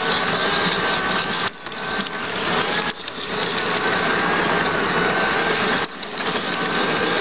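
Model locomotive's electric motor and gears whirring, with the wheels rolling on the track, a steady run with a wavering whine that dips briefly three times.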